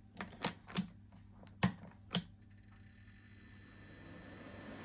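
Five sharp clicks of rocker switches on a mini excavator's control console being toggled, then a faint steady whir that grows from about three seconds in as the hydraulic oil cooler's electric fan comes on.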